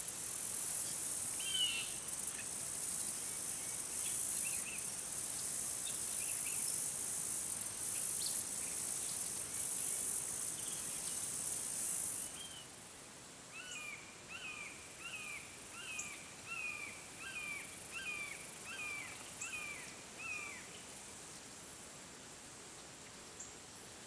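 A steady high-pitched insect drone with a few scattered bird chirps, cutting off suddenly about halfway through. Then a bird calls a series of about eleven down-slurred notes, roughly one and a half a second.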